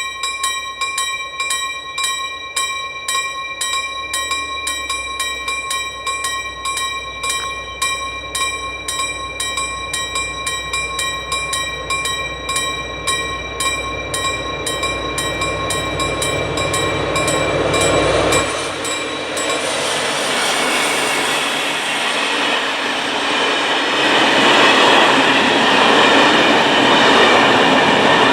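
Level crossing warning bell ringing in quick, even strokes as a freight train approaches. About two-thirds of the way in, the train reaches the crossing and the rumble and clatter of its wheels and wagons take over and grow louder.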